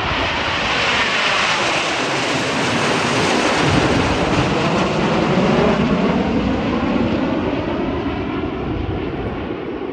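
Formation of nine Canadian Snowbirds CT-114 Tutor jets passing overhead: steady jet noise that builds to its loudest around the middle of the pass, with falling whooshing sweeps in pitch as they go by, then slowly fades.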